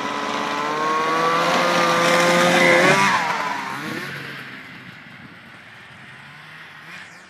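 Two-stroke snowmobile engine accelerating as the sled comes past, its note rising and growing louder until it passes close about three seconds in, then dropping in pitch and fading as it runs off across the snow.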